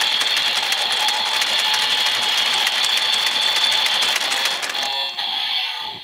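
Handle of a Bandai DX Evol Driver toy transformation belt being cranked: rapid plastic ratchet clicks over the belt's electronic standby music. The cranking and music stop about five seconds in.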